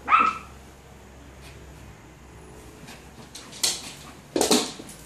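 Dogs playing on a bed: a dog's short, high yelp right at the start. Then scuffling on the bedding, with two louder bursts of noise near the end.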